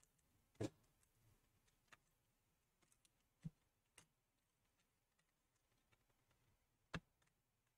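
Near silence broken by three faint, well-spaced clicks of small laptop parts being handled as the motherboard is lifted free.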